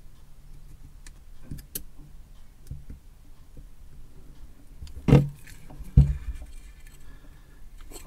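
Small clicks and light metallic rattles from handling a Blue Yeti microphone's circuit board and metal body during soldering, with two sharp louder knocks about five and six seconds in.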